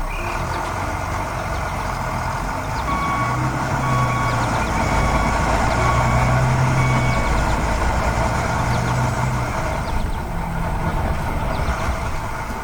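Heavy truck engine running steadily with a reversing alarm beeping about once a second; the beeping stops a little past the middle.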